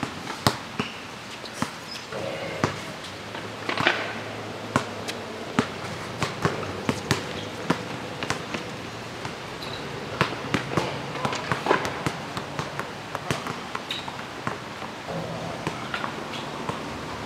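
Basketball bouncing on an asphalt court during play, with sharp, irregular bounces: sometimes in quick runs of dribbles, sometimes spaced out.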